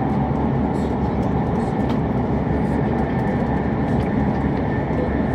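Steady running noise of an E7-series Shinkansen heard from inside the passenger car: an even, continuous rumble that is strongest in the low range, with a faint steady whine above it.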